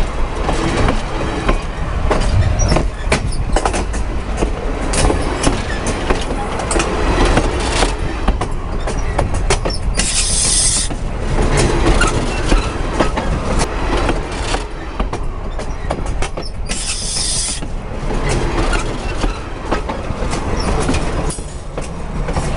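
Freight train passing directly over the microphone: a loud, continuous rumble with rapid clacking of steel wheels over the rails. Two short bursts of high hiss stand out about halfway through and again a few seconds later.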